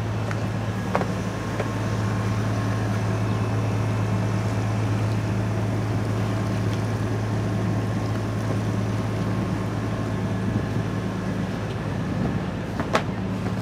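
A tour boat's engine running under way, a steady low drone that does not change. A single sharp click comes near the end.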